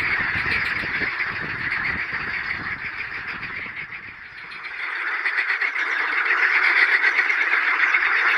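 A chorus of water frogs calling, a dense pulsing croak from several frogs at once, louder from about five seconds in. A low rumble under the first half fades out about four and a half seconds in.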